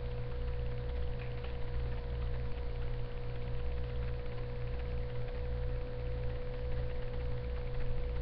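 Steady electrical hum with a constant mid-pitched tone running unchanged over a low drone and faint hiss.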